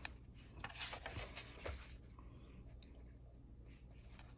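A paper page of a coloring book being turned by hand: a short sharp tap at the start, then soft rustling and brushing of the paper for about two seconds.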